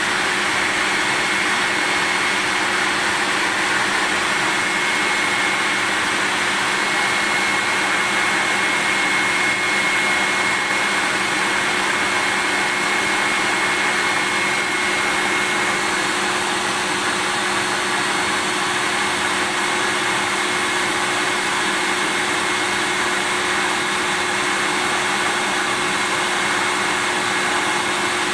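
Vacuum cleaner running steadily: a continuous rushing motor noise with a steady high whine over it, unchanging throughout.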